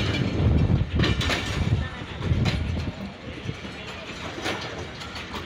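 Passenger coaches rolling slowly past, their wheels clacking over rail joints at uneven intervals above a low rumble that eases about halfway through.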